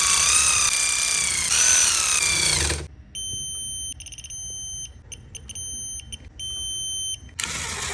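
A cordless power tool whining as it runs fasteners down, its pitch wavering up and down for about three seconds, then a high-pitched electronic beep sounding on and off in several segments.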